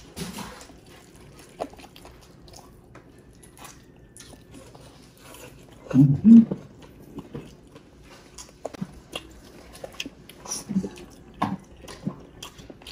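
Close-miked chewing and biting of roast chicken: scattered wet mouth clicks and smacks, with a louder burst about six seconds in.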